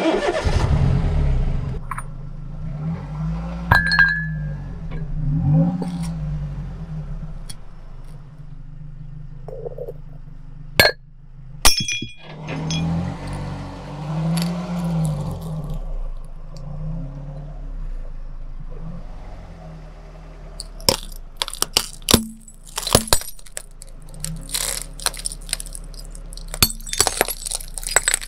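Car engine running slowly, its pitch rising and falling, as the tyre rolls onto a ceramic cup full of liquid, which breaks with a couple of sharp cracks about eleven seconds in. Later the tyre crushes a row of brittle coloured cups, giving a quick run of cracks and snaps over the last several seconds.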